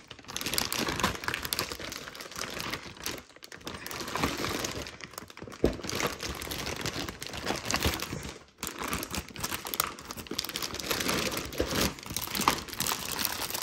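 Plastic packaging crinkling and packing tape being pulled and torn off a bag by hand, an irregular crackling that runs on with two short pauses.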